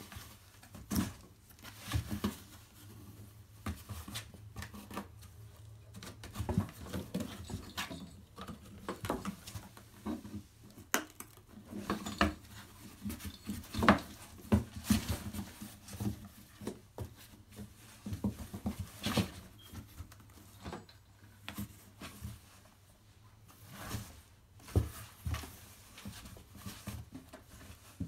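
Kittens playing in a cardboard box: irregular knocks, bumps and scratches of paws and claws on the cardboard, with a sharper knock about halfway through.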